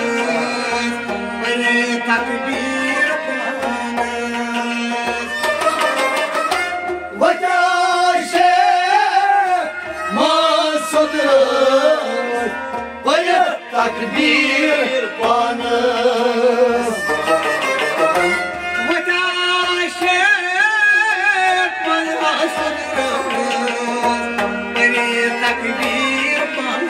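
Kashmiri folk music: melodic instruments over a steady, evenly repeating drum beat.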